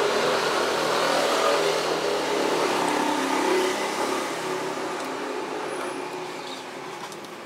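A motor vehicle engine passing by, swelling to a peak over the first few seconds and then slowly fading away.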